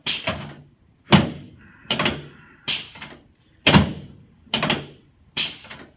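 A series of heavy thuds during hands-on chiropractic work on a treatment table, about seven of them, roughly one a second, each dying away quickly.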